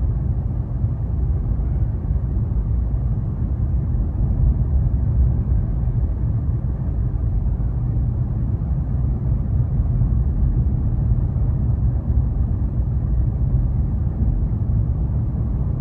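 Steady low rumble of a front-wheel-drive car's engine and tyres heard from inside the cabin while driving on an ice-covered road.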